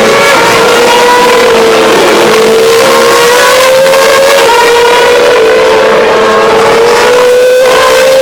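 Racing-car engines screaming at high revs. The pitch climbs steadily and drops back at each upshift, about three times.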